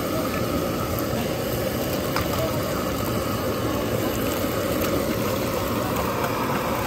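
A steady rushing noise from a gas stove burner, with eggs sizzling in hot fat in a steel frying pan as they are cracked in.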